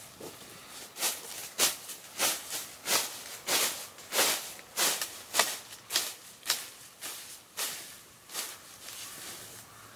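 Hand sickle cutting through weeds: a regular run of short swishes, about three every two seconds, thinning out near the end.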